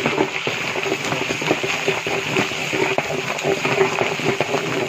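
Long metal ladle stirring and scraping through the liquid in a large metal cooking pot, with many irregular knocks of metal on metal. Under it runs a steady hiss and a low hum.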